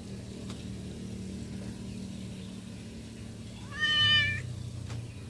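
Domestic cat giving one short meow about four seconds in, over a faint steady low hum.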